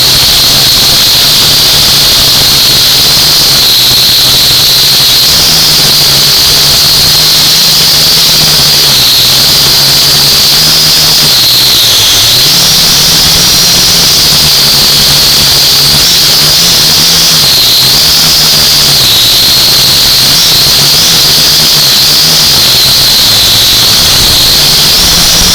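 A drone's electric motors and propellers whining steadily in flight. The pitch drifts up and down as the motors speed up and slow down, most clearly about halfway through and again a few seconds later.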